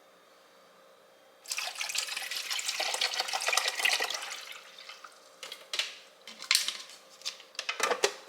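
Water running from a kitchen tap into a container for about three seconds, then stopping. Several light clicks and knocks follow.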